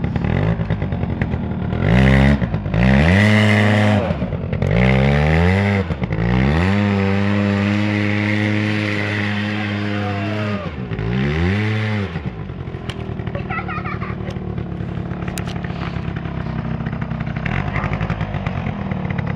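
Aeon Revo 100 ATV engine idling, then revving up under throttle several times. It rises sharply, dips, climbs and holds high for a few seconds, falls, and rises briefly once more before settling back to a steady idle for the rest of the time.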